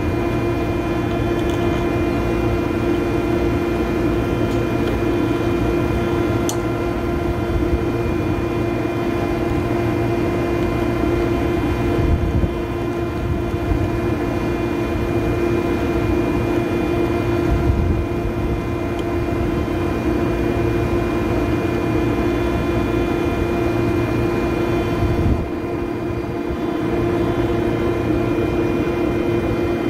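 Steady drone of rooftop machinery running nearby: a constant hum with a strong fixed tone and a low rumble beneath, unchanging apart from a brief dip near the end.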